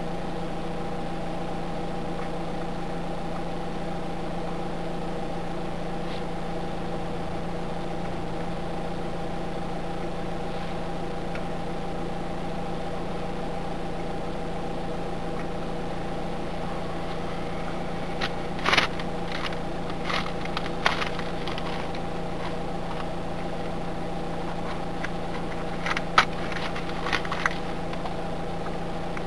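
Steady hum heard inside a car standing still, with a few sharp clicks and knocks about two-thirds of the way through and a second cluster near the end.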